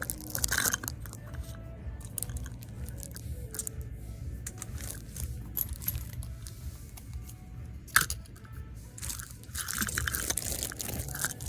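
Fidget toys and packaging being handled and sorted: rustling and clicking of plastic, heaviest near the start and again near the end, with one sharp click about eight seconds in. Faint music plays in the background.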